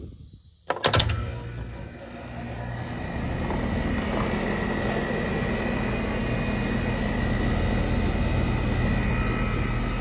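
Outdoor air-conditioning condenser starting up after its contactor was replaced: a sharp clack about a second in as the new contactor pulls in, then the compressor and condenser fan come up to speed over a couple of seconds and run steadily with a low hum.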